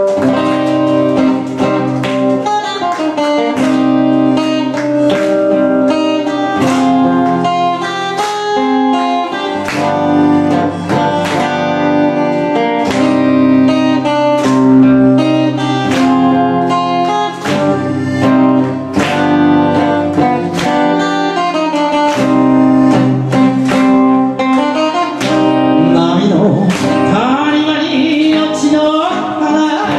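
Guitar playing a melodic enka-style introduction, plucked note by note at a steady pace; in the last few seconds gliding, sliding notes join in.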